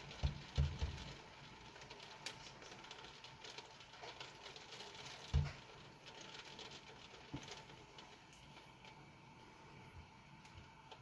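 Rain pattering steadily on a window pane, with many small drip ticks and a few dull low thumps, two near the start and the loudest about five seconds in.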